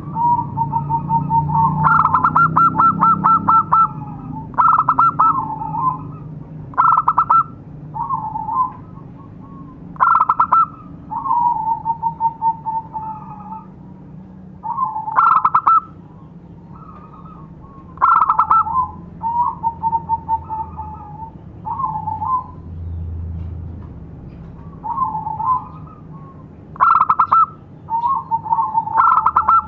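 Zebra dove (perkutut) cooing: repeated phrases of quick rolling notes and short held tones, a new phrase every two to three seconds.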